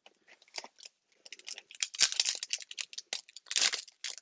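A 2020 Prizm Football hobby pack's wrapper being torn open and crumpled: a quick run of rips and crinkles, busiest from about two seconds in.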